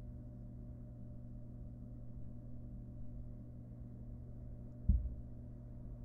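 Steady low electrical hum from a nest-box camera microphone, with a single dull thump in the wooden box near the end.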